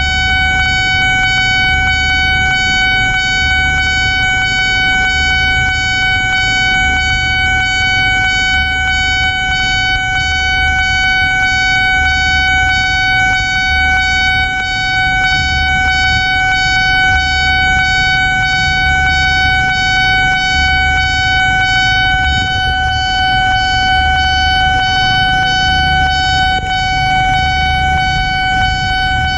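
Railway level-crossing alarm of the Nippon Signal type sounding loud and unbroken: one steady high tone with overtones, with a low pulse repeating about every two seconds underneath.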